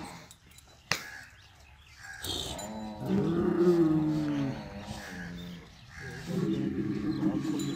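Cattle mooing twice, two long low moos of about three seconds each. The second starts about six seconds in. There is a sharp click about a second in.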